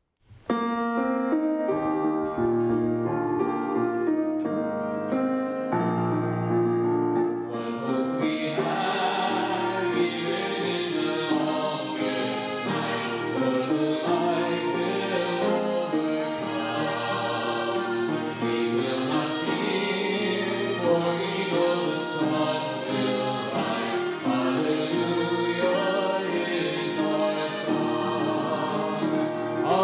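Church worship band playing a hymn: Yamaha MODX stage keyboard, violin and acoustic guitar open with steady chords, and voices join in singing about eight seconds in.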